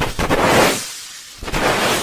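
Hands rubbing over a binaural microphone's ears, ASMR ear rubbing: two long, close rubbing sweeps, with the fast rhythmic rubbing of the 'helicopter' trigger just before and after.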